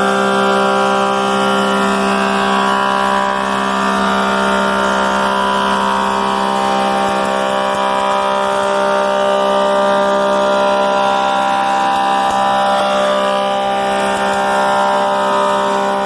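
An 18-inch thickness planer running at full speed, steady and loud, with a whine of several steady tones over the rush of the cutterhead, as it planes sycamore planks.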